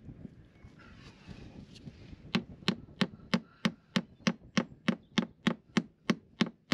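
Claw hammer driving a nail into the wooden hull planking of a boat: quick, even blows about three a second, starting about two and a half seconds in.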